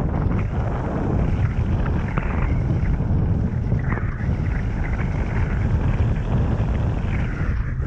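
Mountain bike riding fast along a dirt forest trail: wind buffeting the microphone, with the tyres rolling and the bike rattling over rough ground in quick, uneven clicks.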